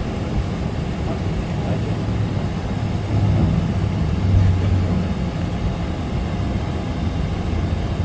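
Steady low rumble inside a Boeing 777 cabin on the ground after landing, with a faint hum that swells slightly a few seconds in.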